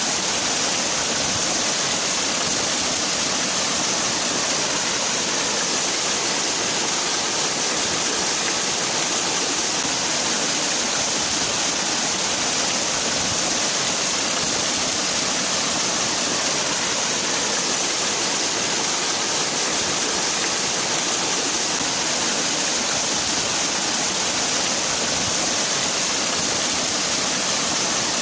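Waterfall: water falling and rushing steadily, an even hiss strongest in the high range.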